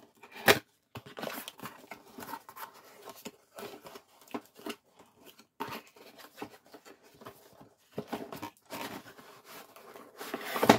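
A printed paperboard toy box being unfolded and pulled open by hand: an irregular run of cardboard rustles, scrapes and flap cracks, with a sharp snap about half a second in and a louder stretch of handling near the end.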